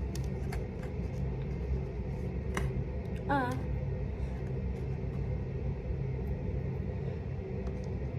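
A steady low rumbling hum, with faint scattered soft clicks from slime being worked by hand. A brief wavering pitched sound comes a little over three seconds in.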